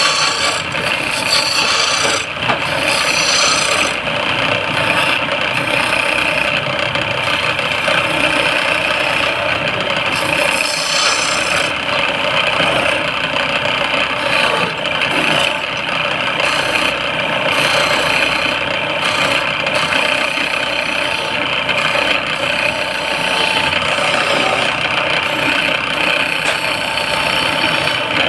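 Wood lathe running steadily with a constant motor hum, while a tool rubs and scrapes against the spinning wood.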